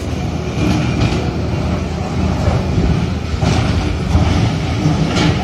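Excavator demolishing a building: its diesel engine runs steadily under a low rumble, with debris clattering in short bursts about a second in, past three seconds and near the end.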